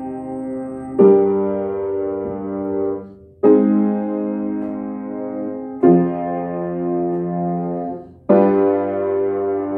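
Piano playing a chord progression, the harmonic base for a melodic dictation: sustained block chords struck about every two and a half seconds, four in all, each ringing until the next.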